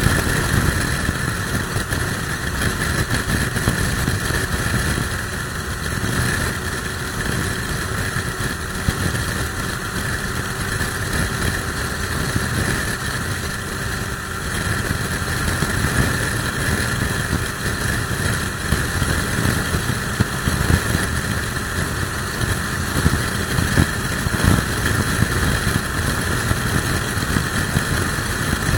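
Motorcycle riding at highway speed, its engine running steadily under heavy, gusting wind noise on the microphone from a strong crosswind.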